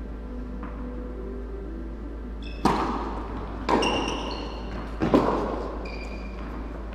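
Tennis ball being struck and bouncing during a rally on an indoor court: three sharp hits about a second apart, starting near the middle, each with a brief ring and an echo off the large hall, over a steady low hum.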